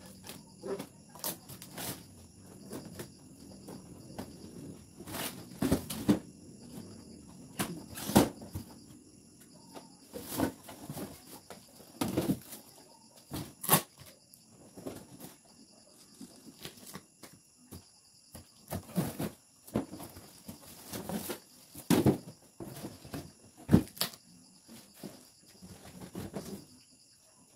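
Cardboard boxes being handled and opened: irregular rustling, scraping and sharp knocks throughout, with a faint steady high-pitched whine underneath.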